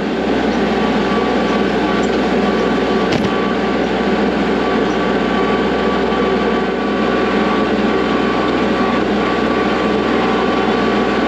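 Kubota L3301 tractor's three-cylinder diesel engine running steadily, with one short knock about three seconds in.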